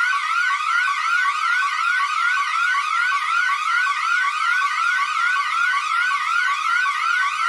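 Electronic emergency alert alarm tone: a high, fast, siren-like yelp made of a short rising sweep that repeats about three times a second, steady and unbroken.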